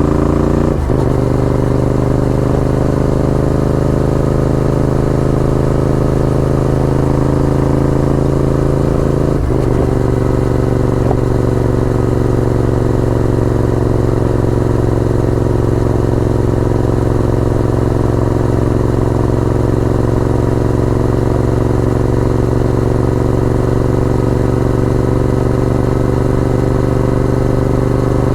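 Honda VTR1000F's 90-degree V-twin engine under way, its note climbing slowly as the bike gathers speed. The pitch drops at a gear change near the start and again about nine seconds in, then holds steady at cruising speed.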